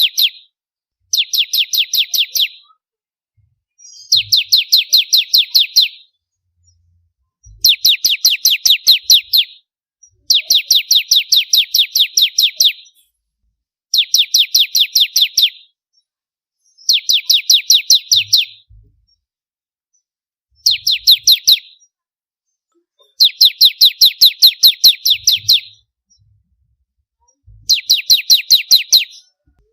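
Bar-winged prinia (ciblek) singing in a loud, gacor way: phrase after phrase of rapid, even, high chipping notes, about five a second. Each phrase lasts one to three seconds, with short pauses between.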